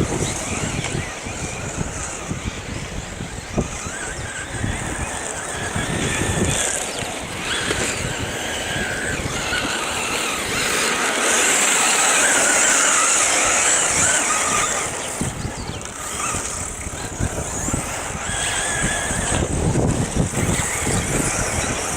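Radio-controlled 1:8 electric cars driving, their brushless motors whining higher and lower as they speed up and slow down. The whine is loudest in the middle.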